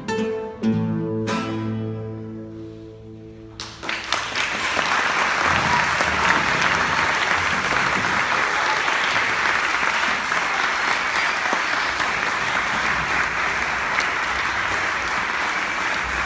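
A group of nylon-string classical guitars plays its closing chords, the last one ringing and fading out over about two seconds. Then audience applause breaks out about four seconds in and goes on steadily.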